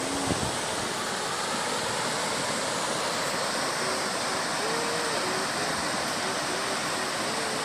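Steady rushing noise of a tall waterfall's falling water, even and unbroken.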